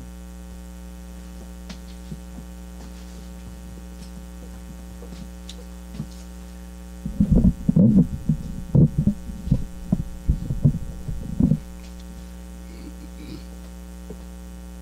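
Steady mains hum throughout. From about seven seconds in, some four seconds of loud, irregular knocks and thumps as the podium microphone on its stand is handled and adjusted.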